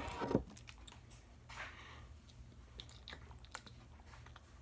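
A plastic sports-drink bottle grabbed and handled at the start, then someone drinking from it, with faint swallows and small scattered clicks.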